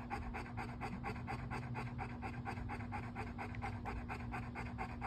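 Yellow Labrador retriever panting hard with its tongue out, a quick, even rhythm of short breaths.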